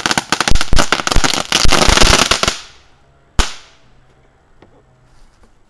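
A small crackling ground firework going off: a dense run of rapid sharp pops that dies out about two and a half seconds in, followed a second later by one louder single pop, then only a few faint ticks.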